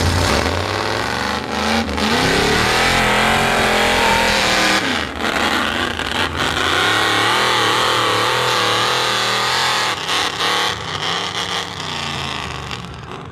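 Straight-piped, open-exhaust engine of a 1970s Ford mud truck revving hard, its pitch repeatedly rising and falling under full throttle with short throttle lifts, quieter near the end.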